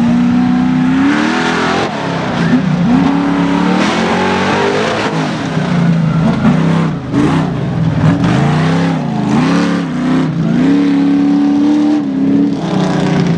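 Lifted Tahoe mud truck's engine revving up and down over and over as the truck climbs and drops through the dirt hills and holes. Near the end it holds a steady high pitch for a second or so, then drops.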